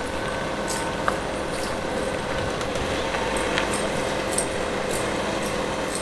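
Steady outdoor background hum of distant traffic, with faint high chirps now and then.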